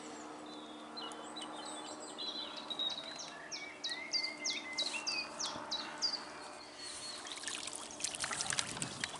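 A small bird singing a quick run of short, falling notes over faint water sounds, as a landing net holding a bream is lowered into the lake to let the fish swim out. Near the end the net is lifted out dripping, with a few light splashes.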